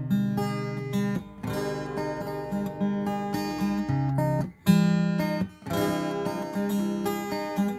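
Background music: acoustic guitar strumming chords that change every second or so, with a brief break a little past halfway.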